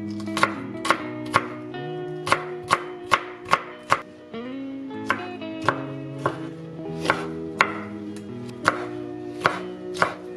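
Chef's knife chopping on a wooden cutting board, about two sharp strikes a second: first dicing green bell pepper, then mincing peeled raw shrimp. Light background music runs underneath.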